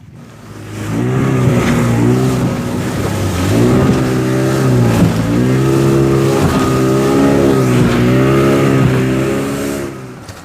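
A speedboat's outboard motor running at high revs, its pitch dipping and climbing back several times.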